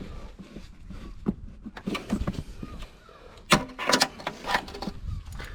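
Mole grips working a rusted, seized stud back and forth: scattered metallic clicks and scrapes, with a sharp knock about three and a half seconds in and a few more just after.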